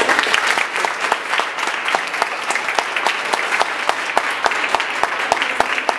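Audience applauding: a dense patter of many hands, with some louder single claps close by.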